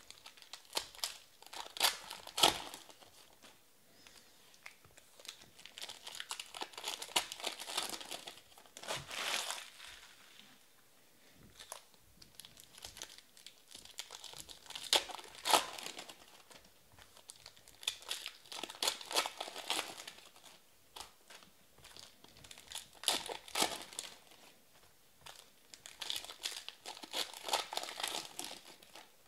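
Foil trading-card pack wrappers being torn open and crinkled by hand, in about six bursts of crinkling with sharp crackles and short quiet gaps between them.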